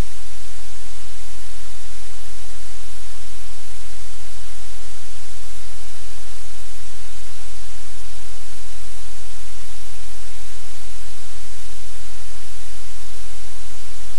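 Loud, steady static hiss with a constant low hum underneath, unchanging throughout.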